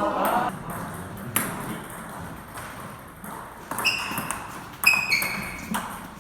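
Table tennis ball striking paddle and table: a handful of sharp, ringing pocks, bunched in the second half.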